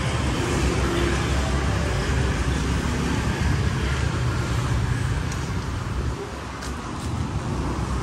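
Street traffic: a motor vehicle's engine running close by, with a steady low rumble that drops away about six seconds in.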